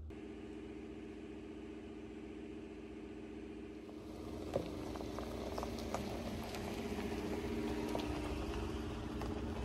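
Vehicle engine running at a steady pitch, getting a little louder about four seconds in, with a few light clicks.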